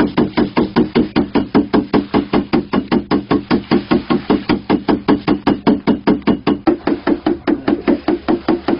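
Rapid, steady knocking on a hollow plastic jug, about five knocks a second. The knocking is a signal that calls pond fish to come and feed.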